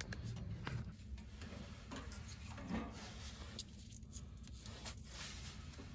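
Wood fire crackling faintly in a small metal tent stove: scattered quiet ticks and pops over a low rumble.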